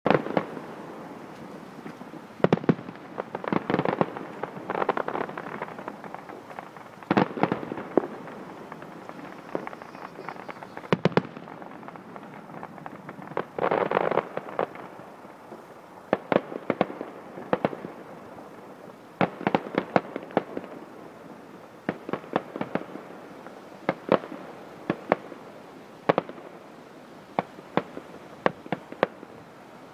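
Fireworks going off in many sharp bangs, some single and some in quick crackling clusters, scattered throughout with no let-up.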